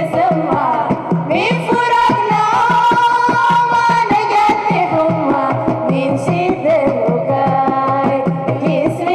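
Music with a singing voice carrying a wavering melody over a steady, regular drum beat.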